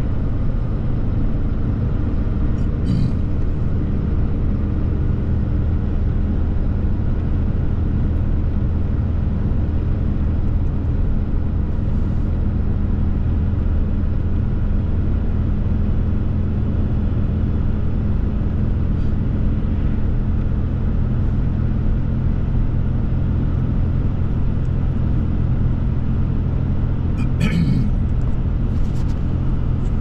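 Steady in-cab drone of a Ram 3500 pickup truck cruising on the open road: engine and tyre noise under a constant low hum. Two brief clicks, about three seconds in and near the end.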